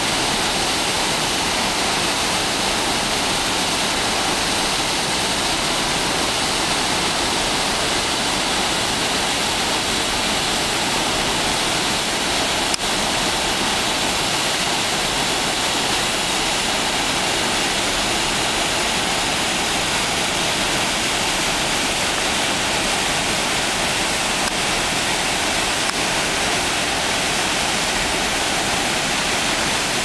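Waterfall pouring over large boulders: a loud, steady, unbroken rush of white water.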